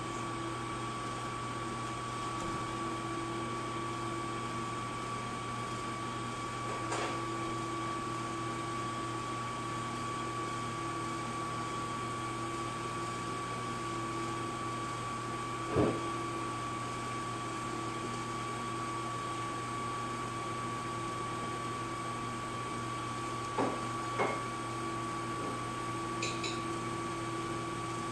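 Portable sawmill running steadily, a constant machine hum, with a few short knocks, the loudest about halfway through and two close together later on.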